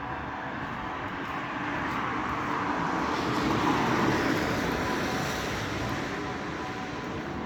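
Rushing noise of a passing vehicle, swelling to its loudest about halfway through and then fading, over a faint steady hum of a few held tones.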